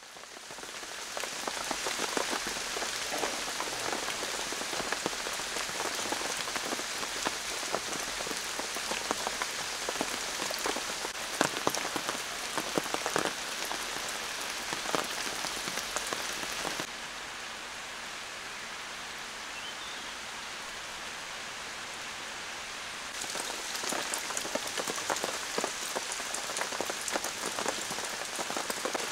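Steady rain falling, with many separate drop hits standing out from the hiss. It fades in at the start, turns duller and a little quieter for several seconds past the middle, then comes back.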